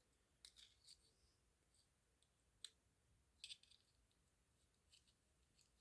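Faint, scattered light clicks and scrapes of a small flathead screwdriver working inside a Zippo lighter's metal insert, digging out the cotton packing.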